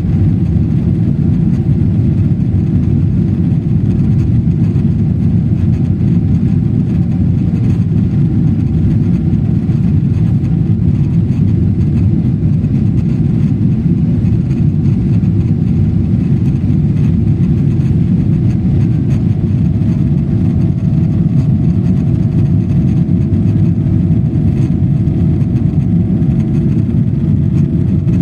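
Steady low rumble of an airliner's engines and rushing air during the takeoff climb, with a faint steady higher tone that joins about two-thirds of the way through.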